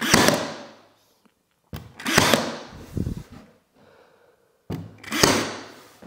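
Cordless battery-powered nailer firing brads to tack a thin plywood bending strip onto a board, three main shots a couple of seconds apart, each a sharp bang that dies away within about a second.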